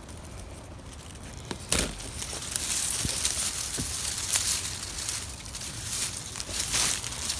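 Crackling and rustling of dry pine needles and fallen leaves being disturbed, starting about a second and a half in, with a few sharp clicks.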